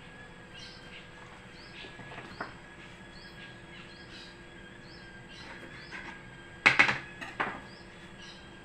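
A small bird chirping over and over in the background, short high chirps about once or twice a second. About two-thirds of the way in comes a quick cluster of sharp knocks and clatters from kitchen handling, then one more knock, the loudest sounds here.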